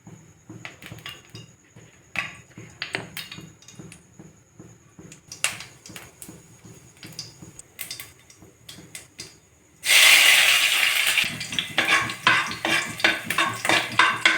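Light clatter and tapping of kitchen utensils against a pan, then, about ten seconds in, loud sizzling starts suddenly as roti pieces go into hot oil, with quick clicks of a spatula stirring through the hiss.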